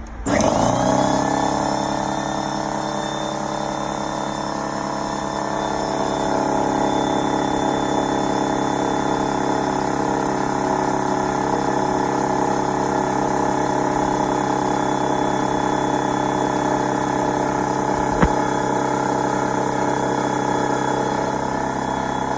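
Husky 175 psi air compressor kicking on and running steadily, building tank pressure on its first cycle through a newly fitted Square D pressure switch. The motor comes up to speed within about a second, and there is a single sharp click about 18 seconds in.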